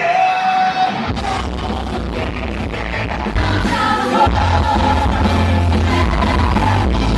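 Rock-style music with a singer: a held sung note, then a heavy bass line and beat come in about a second in, with singing over them.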